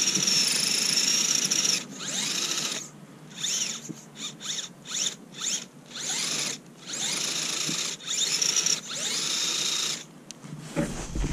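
Axial UTB18 Capra mini crawler's electric motor and geared drivetrain whining in throttle bursts, the wheels spinning freely while the truck lies flipped: a few long revs, a quick string of short blips a few seconds in, then two more long revs before it stops near the end. A low rumble comes in just after the whine stops.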